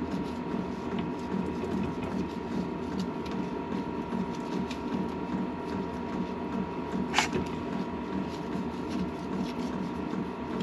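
A steady, evenly pulsing mechanical running noise with a thin high whine over it, and one sharp metallic click about seven seconds in.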